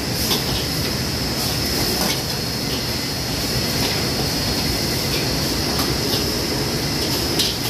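Steady roar of a commercial kitchen's wok range and extraction hood, with a steady high whine and a few sharp clinks of metal utensils and bowls scattered through it.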